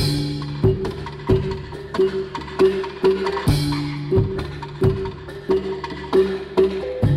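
Traditional Dayak dance music for the hornbill dance: quick, wooden-sounding percussion strikes over a repeating pitched melody, with a deep ringing stroke about every three and a half seconds.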